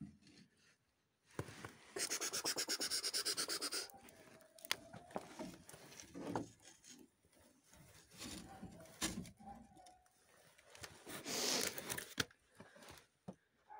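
Close handling noise: rubbing and scraping against the microphone and nearby surfaces, with a loud rapid rasping stretch about two seconds in, another scraping burst near the end, and scattered knocks between them.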